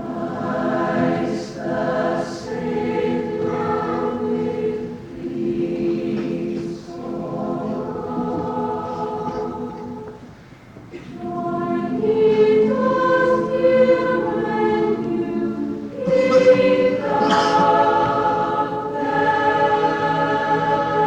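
Choir singing sustained chords in phrases. It breaks off briefly about ten seconds in and comes back louder.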